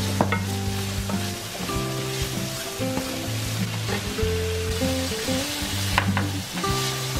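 Garlic, sausage slices and mushrooms sizzling in olive oil in a frying pan as they are stirred with a wooden spatula, which knocks against the pan a couple of times. Soft background music with a slow melody plays underneath.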